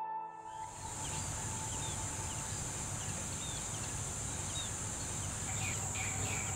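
Steady high-pitched insect drone with short, scattered bird chirps over it.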